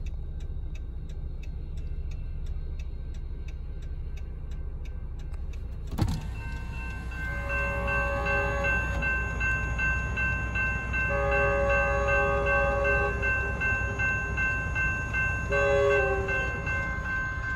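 Railroad crossing warning bell ringing steadily, heard from inside a stopped car. After a cut about six seconds in, an approaching train's horn sounds three blasts, the third shorter, over the continuing crossing signal.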